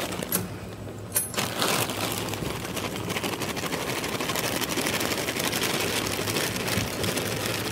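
Emery Thompson 12-quart batch freezer running steadily while frozen ice cream is drawn out through its open discharge door. A few sharp clicks come in the first two seconds.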